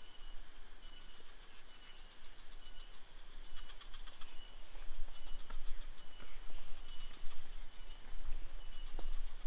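Insects chirping in a steady, high, pulsing trill over rural ambience, with a low rumble and a few soft footsteps on a wet path.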